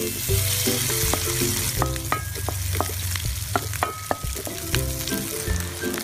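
Cooked rice tipped into hot oil in a wok, sizzling as it lands, loudest in the first couple of seconds. Scattered light knocks and scrapes of the bowl and utensil against the pan.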